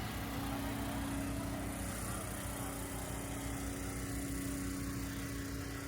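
Steady machine hum: one held low tone over a low rumble and a light hiss, unchanging throughout.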